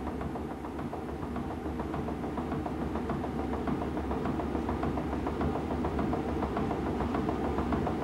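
Water-driven mill machinery running: millstones grinding wheat, with a steady rumble and a rapid, regular clatter of knocks.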